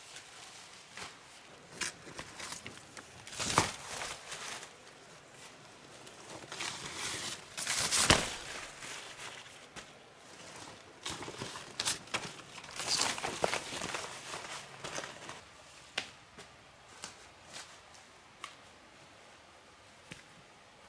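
Someone moving about and handling materials: footsteps, rustling and crackling, with scattered clicks and two sharper knocks about 3.5 and 8 seconds in.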